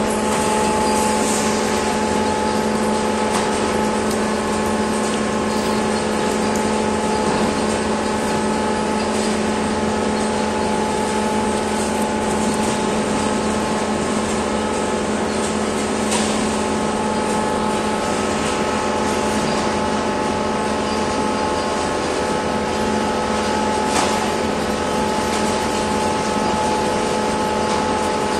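Steady machine hum with several constant tones, unchanging throughout, with a few light knocks.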